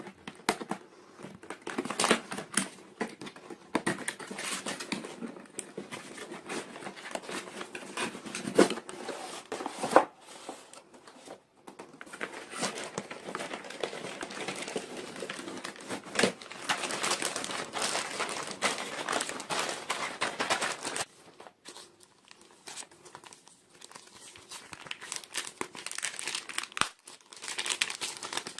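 Toy packaging being crinkled and torn open by hand during an unboxing, a continuous crackle broken by sharp clicks and a few louder snaps; it eases off for a few seconds past the middle, then picks up again.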